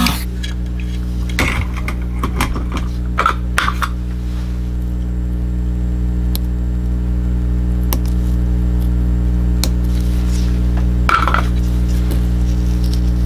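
Small clicks, taps and brief scrapes of a soldering iron and a mouse click-switch board being worked by hand while the switches are desoldered, over a steady low electrical hum. The clicks bunch together in the first few seconds, and one short scrape comes near the end.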